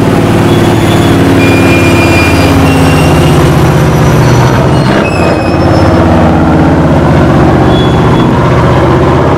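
Heavy engine of a parade float's vehicle running close by, a loud, steady low drone with a fast even pulse.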